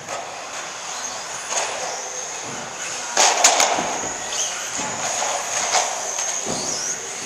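Electric RC buggies with 17.5-turn brushless motors running on the track, with a steady high motor whine and tyre noise. A quick cluster of sharp knocks comes about three seconds in, and a whine glides in pitch near the end as a car revs.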